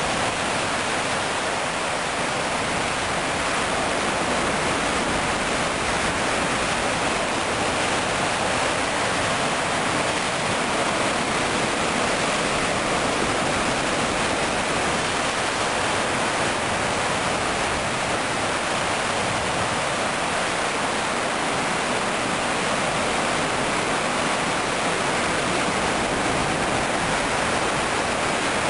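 Sea surf breaking and churning over coastal rocks: a steady, loud rush of foaming white water with no separate wave crashes standing out.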